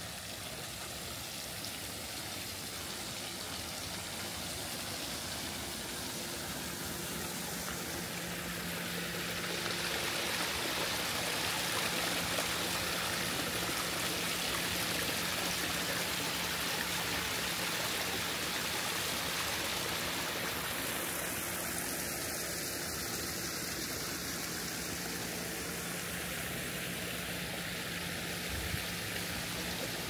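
Steady rush of running water, growing louder through the middle and easing off slightly toward the end.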